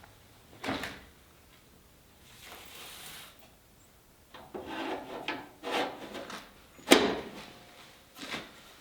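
Knocks, clatters and sliding scrapes of wooden things being handled, like a drawer or cupboard opened and shut, with the loudest, sharpest knock about seven seconds in.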